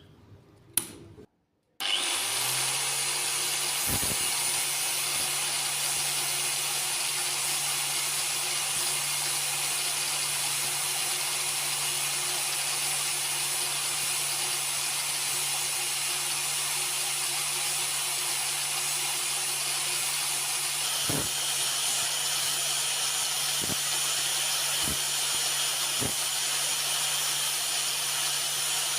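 A small electric power tool starts up about two seconds in and runs steadily: a low motor hum under a loud, even, rough hissing, with a few faint knocks later on.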